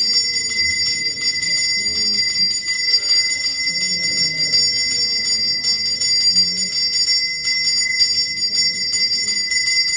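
Temple bell rung rapidly and continuously for aarti: a steady, loud, high ringing made of fast repeated strokes.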